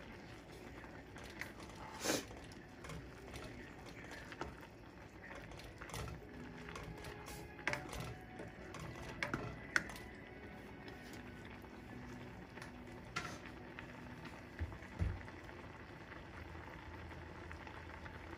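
Pot of instant noodles boiling, with a plastic spoon stirring and clicking against the pot several times.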